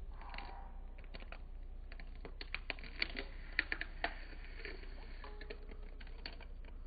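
A quick run of light clicks and taps from kitchen utensils, about two and a half to four seconds in, over a low steady hum.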